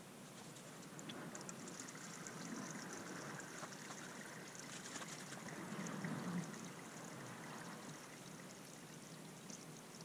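Transmission fluid draining in a thin stream from a car's open transmission drain plug, trickling steadily into a drain pan. Faint, with a slight swell in the middle.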